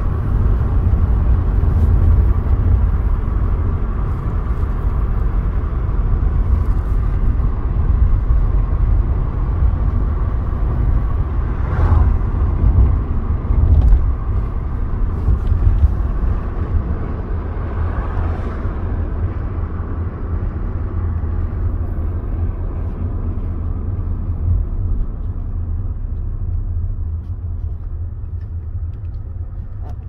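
Road noise inside a moving car: a steady low rumble of tyres and engine, with a few brief louder swells midway. It eases off toward the end as the car slows.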